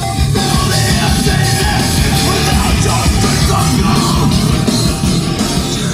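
Loud rock music played through a newly installed Infinity Kappa 693 coaxial door speaker in a car, run without an amplifier, with heavy bass. A short beep repeats about three times a second under it for the first few seconds.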